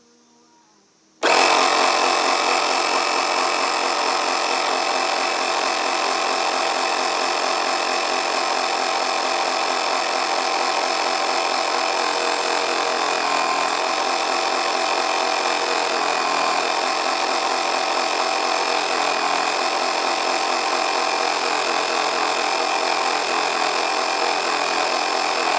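Air compressor switched on about a second in, then running steadily under load as it pressurizes a turbo wastegate actuator to stand in for boost.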